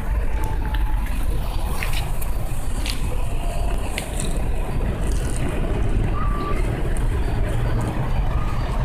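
Steady low rumble of street traffic and a running vehicle engine, with a few sharp clicks and knocks over it.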